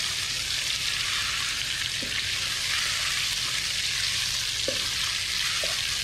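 Marinated chicken pieces sizzling in hot oil in a nonstick wok, a steady frying hiss, with a few faint scrapes of the wooden spatula as they are stirred.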